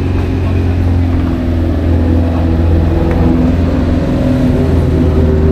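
Car engine running at steady, low revs, with a strong low hum.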